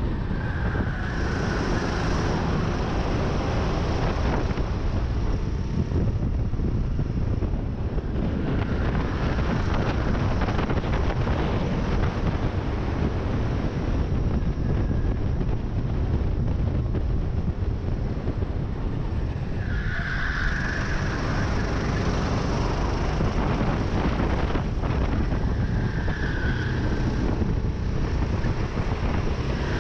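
Onboard sound of a Sodi rental kart at racing speed: its engine running hard without a break, with heavy wind buffeting on the microphone.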